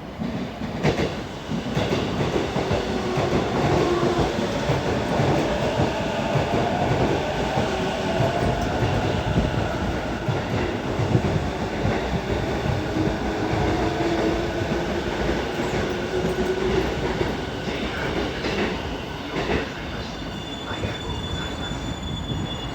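JR Negishi Line electric commuter train pulling into a station platform. Wheels rumble and click over the rail joints while a whine glides lower as the train brakes, and the noise eases off near the end as it comes to a stop.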